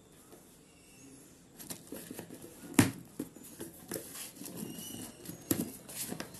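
Cardboard box and packaging being handled as a speaker is taken out: scattered rustles and clicks, with a sharp knock about three seconds in and another a little before the end.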